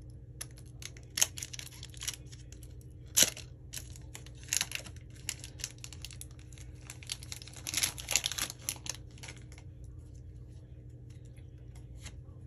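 Foil Pokémon booster pack wrapper being crinkled and torn open, in scattered crackles and sharp rips, loudest about three seconds in and again around eight seconds, thinning out near the end.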